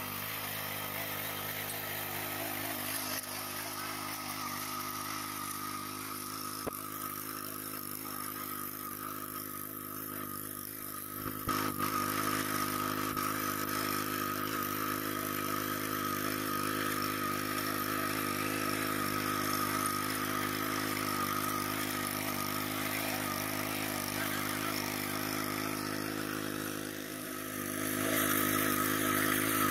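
Small power tiller's engine running steadily under load while its rotary blades till a paddy-stubble field, growing louder near the end.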